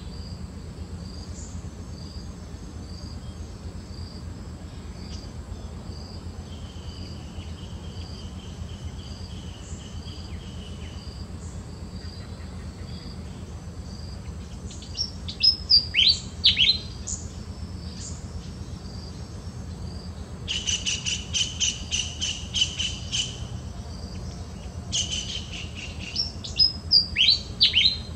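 Wild birds calling. One bird gives a short phrase of quick, high, falling notes, twice, about halfway and again near the end. A fast rattling call comes in between, with a faint high note repeating about once a second in the first half.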